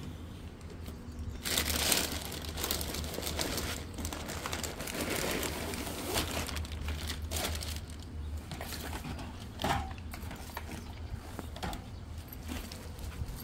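Plastic grocery bags rustling and crinkling as they are handled, opened and set down, in irregular swishes and crackles.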